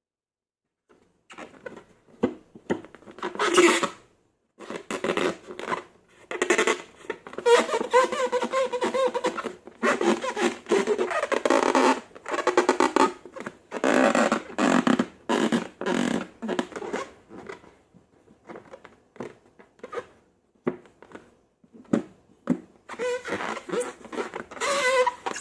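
Slime and rubber balloons being squeezed and handled: irregular squelching with squeaky, fart-like pitched squeals, starting about a second in.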